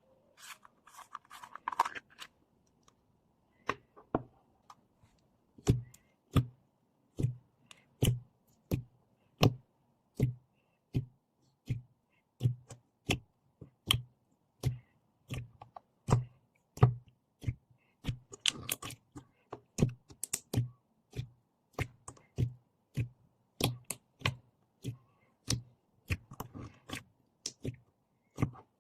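Slime being pressed and squeezed by hand, making a steady series of short pops and clicks, each with a soft low thud, about two a second. A brief rustle just before the pops begin.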